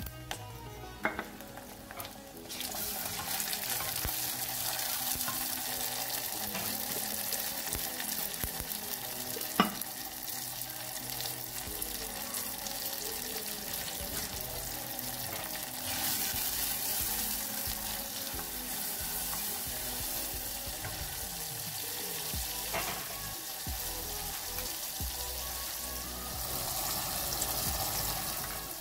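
Chopped tomato, onion and curry leaves sizzling in hot oil in an earthenware pot: a steady frying hiss that starts about two and a half seconds in. A single sharp knock comes near the ten-second mark.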